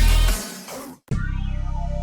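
Background music: a loud electronic track fades out over the first half second and breaks off about a second in, then a quieter section with a steady bass and plucked notes begins.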